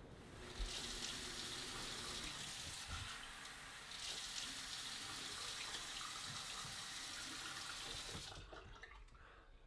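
Bathroom sink tap running, water pouring into the basin. It starts about half a second in, thins briefly around three seconds, and cuts off near the end.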